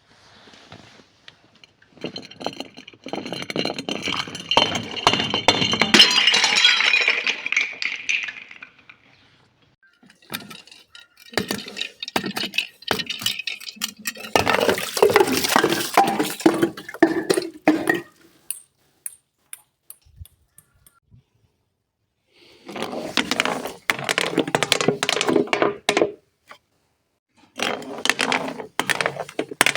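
Glass being crushed and broken: crunching, cracking and clinking in four long bouts with short pauses between them.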